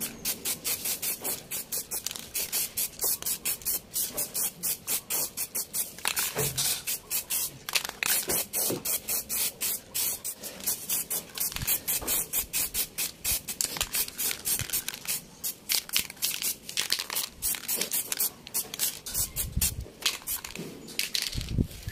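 Aerosol spray can of steel-gray plastic primer hissing in short, quick bursts, about three a second, as light coats are misted onto a motorcycle fairing.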